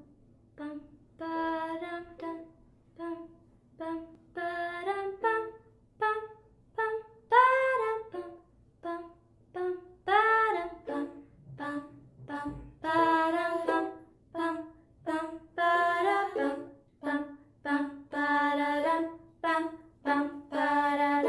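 A cappella vocal music: a voice sings short, clipped syllables in a quick rhythm, with a few longer notes that bend up and down in pitch.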